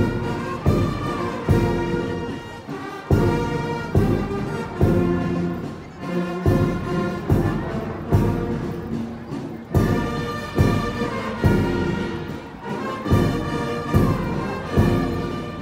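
Band music with brass and a heavy drum beat, sustained horn tones over a strong regular beat a little more than once a second.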